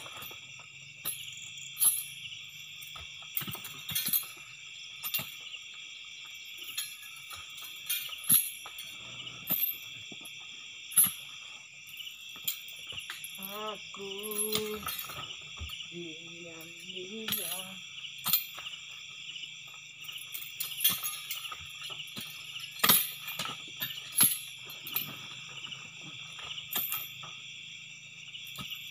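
Oil palm fruit bunches being speared with metal-tipped poles and thrown up onto a truck's load, heard as sharp knocks and thuds at irregular intervals. Crickets chirr steadily underneath.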